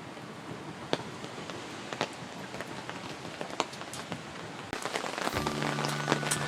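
Rain falling steadily, with scattered sharp drop hits. Background music comes in about five seconds in.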